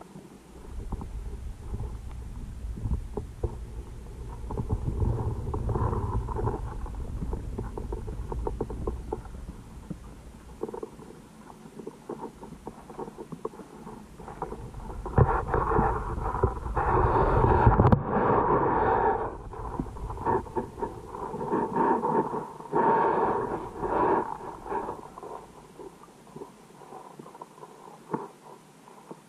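Muffled underwater rumbling and small knocks from a GoPro Hero5 in its waterproof housing as it is moved through shallow water, growing into louder, harsher rushing noise about halfway through before settling down.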